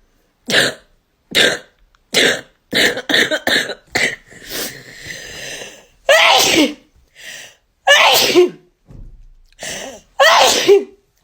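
Sneezing and coughing fit set off by a nasal swab: a quick run of short sharp bursts, then three louder sneezes, each with a falling voiced tail.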